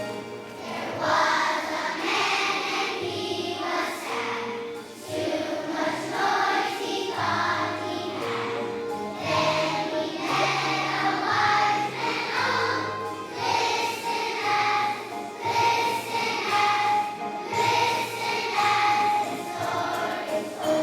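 A choir of young children singing a song together with instrumental accompaniment that has a steady bass line.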